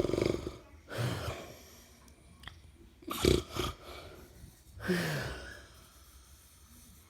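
Elderly man snoring in his sleep: a rattling snore trailing off at the start, then uneven snorts and breaths, the loudest a short snort about three seconds in.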